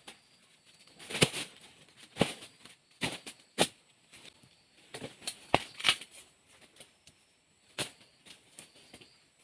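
Dry vegetation rustling and crunching in several sharp, irregular crunches about a second apart, with quiet between them.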